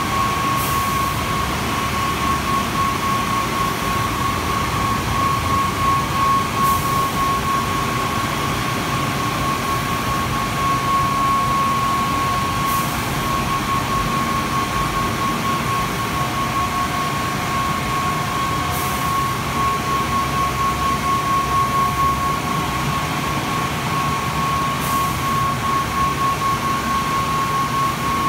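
Kärcher CBC rollover car wash running its drying stage: the dryer blowers give a steady rush of air with a constant high whine, and a faint hiss comes back about every six seconds.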